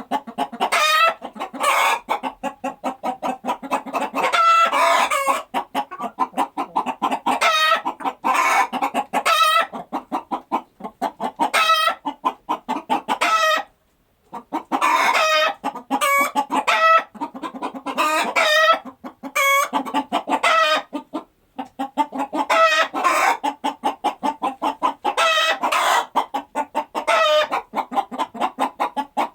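Chickens clucking continuously in rapid, busy runs, with repeated louder pitched cackling calls, briefly pausing twice.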